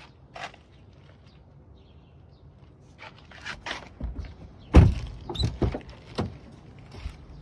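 A 2011 Audi A5's car door being shut, with one heavy thunk a little past halfway, amid several lighter knocks and clicks of handling before and after it.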